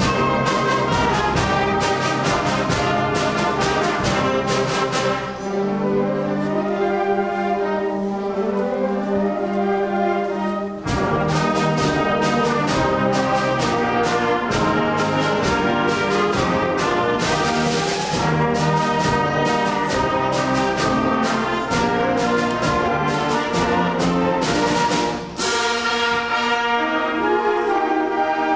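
Seventh-grade concert band playing, with woodwinds, brass and sharp drum strikes. A softer, thinner passage starts about five seconds in, and the full band with drums returns around eleven seconds in.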